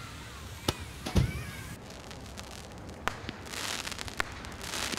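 Consumer aerial firework (multi-shot cake) firing shots into the air: sharp pops a second or more apart, the loudest with a low thump about a second in, and a spell of hissing crackle in the second half.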